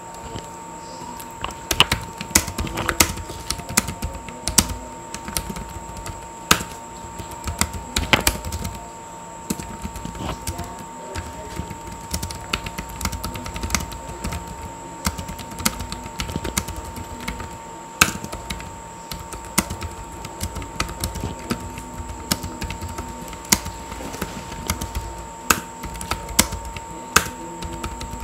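Typing on a Logitech K380 multi-device Bluetooth keyboard with low-profile round keys: a continuous, irregular patter of fairly quiet key clicks with occasional louder taps.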